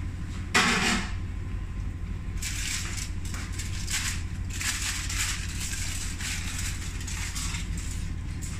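Aluminium foil crinkling and tearing in irregular crackly rustles for several seconds as it is peeled off the rim of a cooking pot, breaking the dum seal on the biryani. A single short clatter comes about half a second in, and a steady low hum runs underneath.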